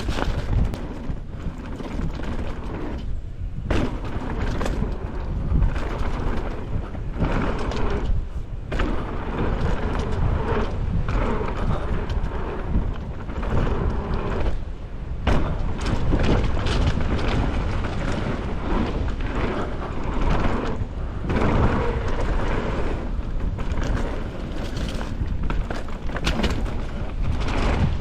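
Mountain bike descending a rough downhill trail: a steady heavy rumble of wind buffeting the microphone and tyres on dirt, broken by many knocks and rattles as the bike hits rocks and roots, easing briefly a few times.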